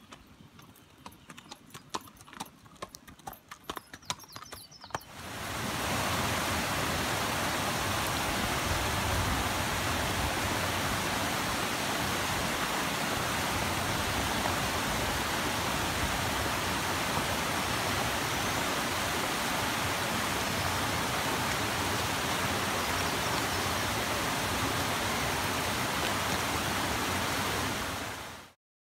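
Hoofbeats of a spotted mountain saddle horse on a dirt trail, an uneven run of clip-clops, for about the first five seconds. Then comes a sudden change to the steady rush of creek water pouring over a low stepped weir, which cuts off abruptly near the end.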